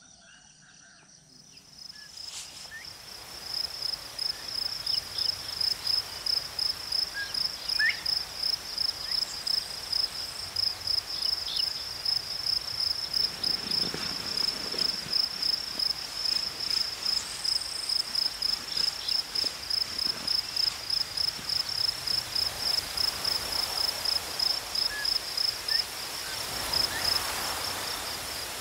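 An insect, such as a cricket, calling in a high, even pulsing trill of about two pulses a second, which rises in about two seconds in and then keeps on steadily over faint outdoor hiss.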